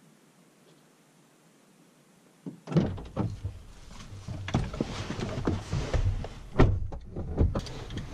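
Near silence for the first two and a half seconds, then a person getting into a car's front seat: a door clunk, thumps on the seat and bodywork, and rustling of clothing against the seat fabric, with sharp knocks now and then.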